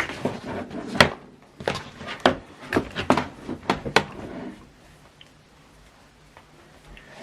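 A string of sharp plastic clicks and knocks from a laptop charger's plug and cable being handled and pushed into a wall socket, the loudest about a second in, dying away after about four and a half seconds.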